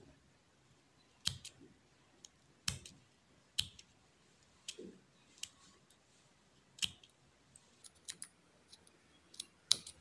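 Small scissors snipping the edge of an embroidered fabric patch: quiet, sharp snips, irregularly spaced about a second apart.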